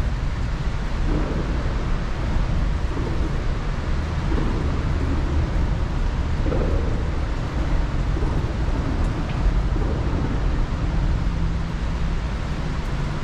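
Steady low rumble of a dam lock chamber draining, its water running out through the lock's culverts and echoing off the high concrete walls.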